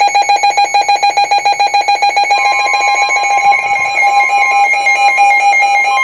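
Emergency alert tones: an electronic tone pulsing rapidly, joined about two and a half seconds in by a second, slightly higher steady tone. The signal that an emergency warning message is about to follow.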